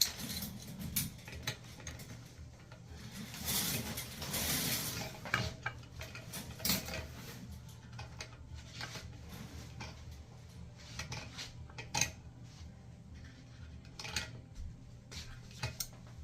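Small hard parts and tools clinking and clicking as they are handled during a toilet repair, with a brief hiss a few seconds in.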